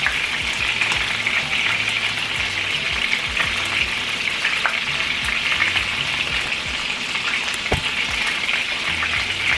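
Meatballs frying in oil in a pan: a steady sizzle with a few small crackles.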